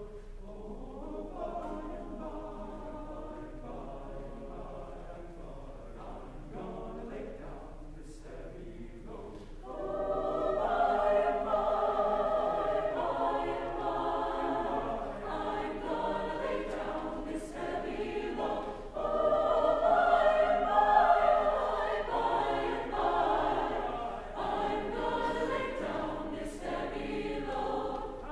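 Mixed choir singing, softly for the first ten seconds, then swelling into a louder, fuller passage.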